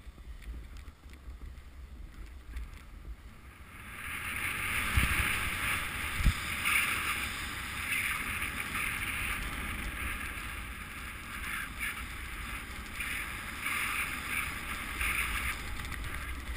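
Snowboard scraping and hissing over packed snow, heard through a GoPro worn by the rider. The scrape starts about four seconds in and swells and fades in uneven pulses as the board carves, over a low wind rumble on the microphone. It eases off near the end.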